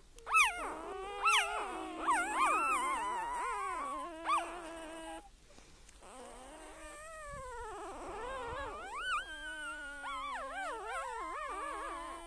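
A pet's high, wavering whining cries, several in a row, loudest in the first half, with a short lull before softer cries resume.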